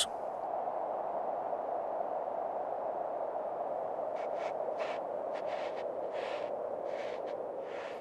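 Wind blowing steadily over sand dunes, a hollow, even hiss. From about halfway through, faint short scratchy scrapes come roughly twice a second: a European pond turtle's claws on loose sand.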